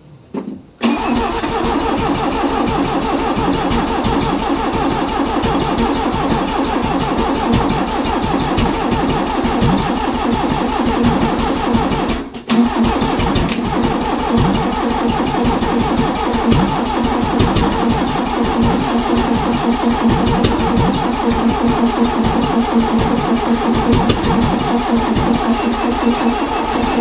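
Engine being turned over on its starter motor in two long cranking runs, with a brief break about twelve seconds in.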